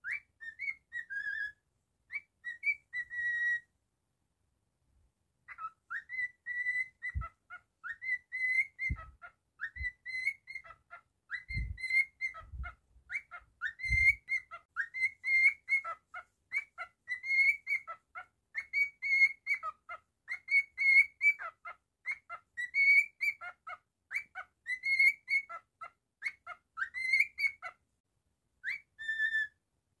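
Cockatiel whistling a learned tune: a long string of short, clear whistled notes at much the same pitch, pausing briefly about four seconds in. A few soft low thumps fall between about seven and fourteen seconds.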